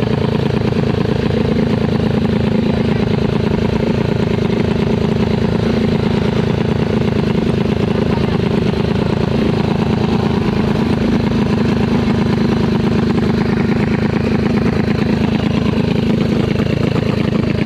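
Race-prepared 125 cc trailbike motorcycle engine with a 57 mm bore, running steadily at the start line without revving.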